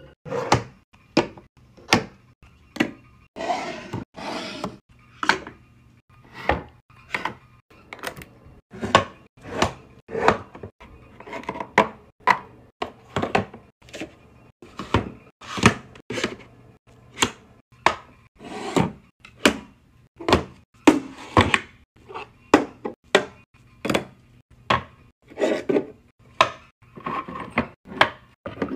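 Plastic and glass cosmetic bottles, jars and tumblers being picked up and set down on shelves and a countertop. They make a steady run of sharp taps and clunks, about two a second, with a few longer, hissier sounds in between.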